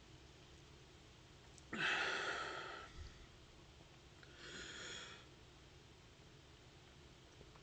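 A person breathing out hard twice through the mouth: a loud breathy exhale of about a second and a soft, shorter one a couple of seconds later. A dull low thump comes at the end of the first.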